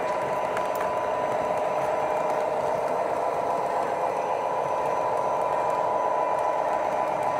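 Lionel O-gauge model trains running on their track: a steady whine from the electric motors with the wheels clattering and rattling over the rails.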